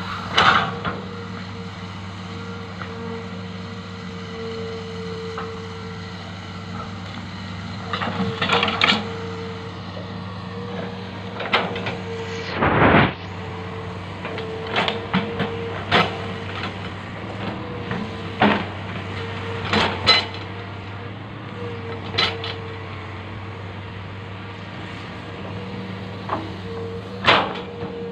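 Hitachi ZX200 excavator's diesel engine idling steadily with a constant hum, while sharp metallic clanks and knocks come irregularly, every second or few, a loud clatter about halfway through.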